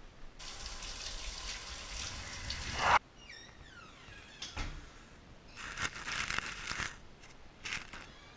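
Running water, rising in pitch near the end, that cuts off sharply about three seconds in. It is followed by a few faint clicks and short rustles.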